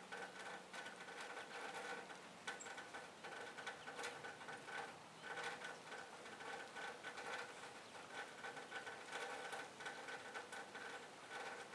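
Faint, irregular ticks and taps of a yellow-bellied sapsucker pecking chipped sunflower hearts at the port of a plastic tube feeder.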